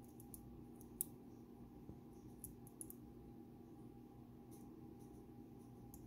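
Faint scattered metallic clicks of a lock pick working the pins of a Dom Sigma pin-tumbler cylinder, one sharper click about a second in, over a low steady hum.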